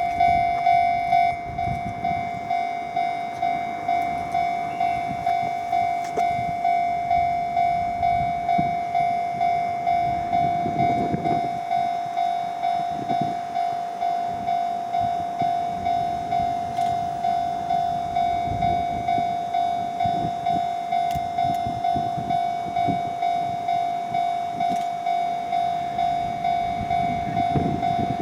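Japanese railway level crossing alarm ringing over and over, about one and a half strikes a second, each strike a single bright tone that dies away before the next. A faint low rumble comes and goes underneath.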